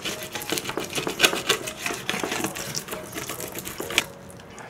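Wooden spoon scraping and stirring fried rice across a metal tray: quick, irregular scrapes and clicks, with a sharp knock about four seconds in, after which it goes quieter.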